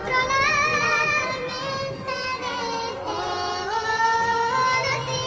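Female voices singing long held notes with vibrato over orchestral accompaniment. The melody shifts pitch about three seconds in.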